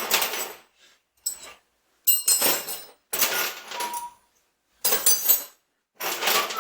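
Loose steel Allen keys and small metal hardware clinking and rattling as they are handled and set down, in about five short bursts with a few ringing clinks.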